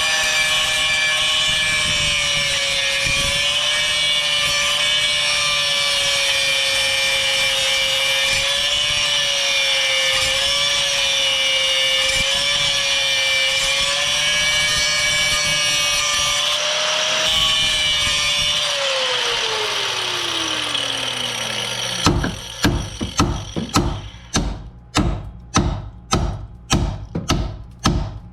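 High-speed power tool grinding away a rusted, seized sway bar link stud, running with a steady high whine, then released and spinning down about 19 s in. From about 22 s, a run of sharp metal hammer blows, about two a second.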